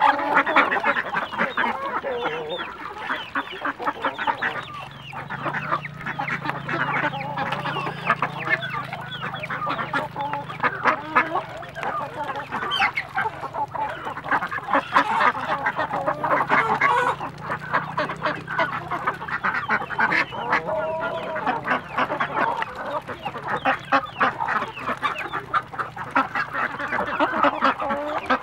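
A crowded flock of domestic ducks feeding at a trough: continuous quacking mixed with rapid clicking of bills in the feed.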